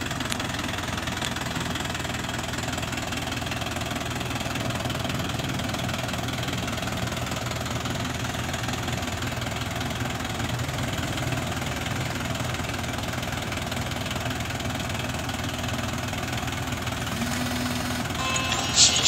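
Mahindra diesel tractor engine running steadily at low revs. Near the end a held tone comes in, then loud, sharp high sounds.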